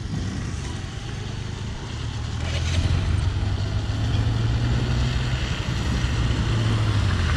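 A motor vehicle's engine running with a steady low hum and road noise, growing louder about two and a half seconds in.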